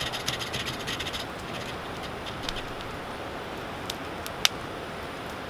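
Wood campfire crackling over a steady hiss: a quick run of small crackles in the first second or so, then a few single sharp pops.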